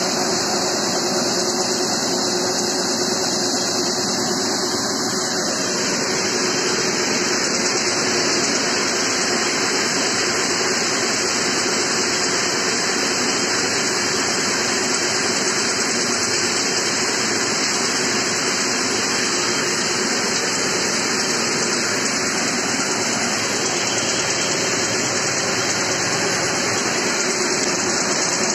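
Groundnut pod-separator machine running steadily, a constant mechanical noise with a faint steady hum, as groundnut plants are fed through its chain-and-sprocket stripping mechanism.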